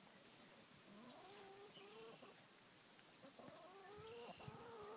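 A chicken making faint, drawn-out wavering calls that rise and fall in pitch, one after another from about a second in.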